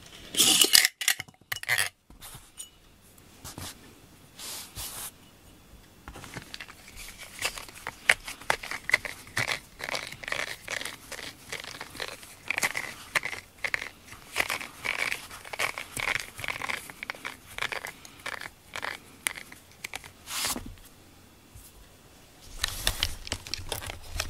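Rubber grooming brush scraping, short scratchy strokes several a second, as shed cat fur is pulled off it and pushed into a glass jar. A brief loud clatter near the start and handling of the jar near the end.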